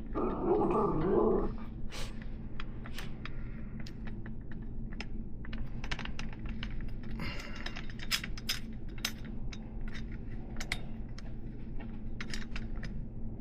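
Irregular light metallic clicks and ticks of wrenches and axle nuts being worked on a BMX hub's threaded solid axle, with a brief louder muffled noise at the start and a short scraping sound about halfway through.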